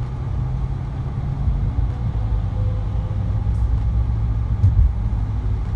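Car cabin noise while driving: a steady low rumble of the engine and tyres on the road, heard from inside the car.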